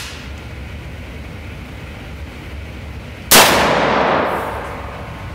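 A single blast from a KelTec KSG 12-gauge bullpup pump-action shotgun about three seconds in, followed by a long echo that fades over about a second and a half in the indoor range.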